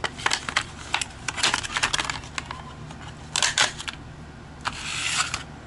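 A drill chuck key being handled: a string of small clicks and knocks, with a short rustle about five seconds in.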